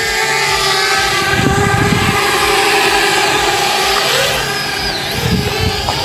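Parrot Bebop 2 quadcopter's motors and propellers whining steadily in flight, the pitch dipping and wavering briefly near the middle and end as the drone adjusts its speed.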